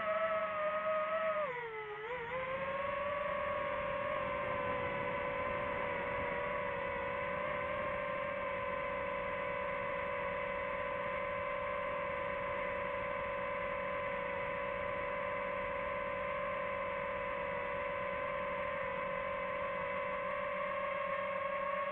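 DJI FPV drone's electric motors and propellers whining at a steady pitch. The pitch drops sharply about two seconds in as throttle comes off, then climbs back and holds level.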